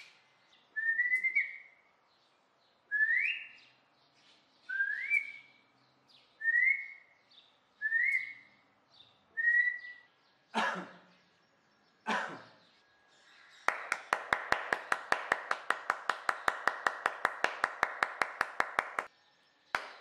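Six short whistles, each gliding upward and then held, about one and a half seconds apart. Then come two sharp claps, and then a rapid rattle of about seven pulses a second that lasts around five seconds and stops suddenly.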